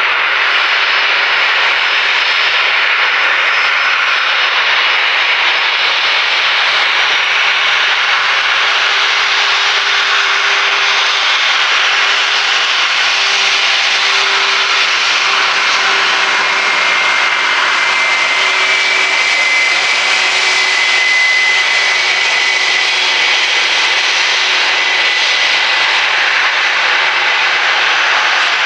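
Airbus A320's twin jet engines running at taxi power as the airliner rolls along the taxiway. A steady jet rush carries a low hum and a thin high whine that grows stronger past the middle.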